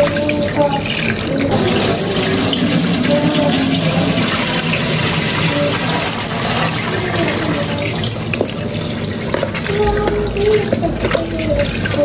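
Kitchen tap running onto raw chicken wings in a plastic colander, the water splashing and draining as the wings are rubbed and turned by hand under the stream.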